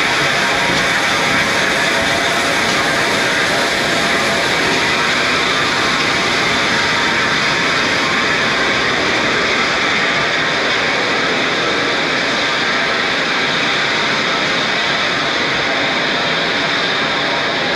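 GWR Castle-class steam locomotive 7029 Clun Castle giving off a loud, steady hiss of escaping steam as it draws slowly into the platform. There is no beat of exhaust.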